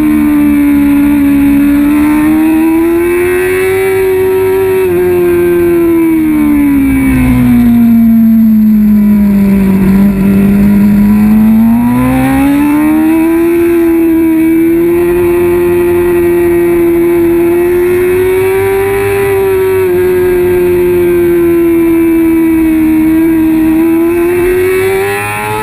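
Kawasaki ZX-6R 636 inline-four engine at high revs under race load, heard onboard. Its pitch falls through a slower stretch about eight to ten seconds in, climbs back and holds high, with a couple of brief breaks in pitch.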